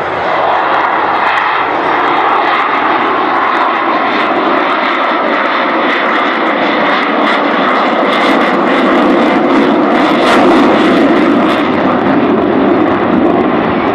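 Jet aircraft flying an aerobatic display, its engine noise loud and steady, swelling slightly about ten seconds in.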